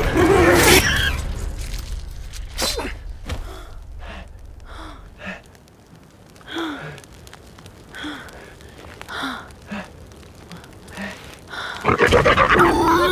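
Ragged gasping breaths, one short gasp about every second, after a fierce struggle with a wild boar. A louder burst of sound comes at the very start and again near the end.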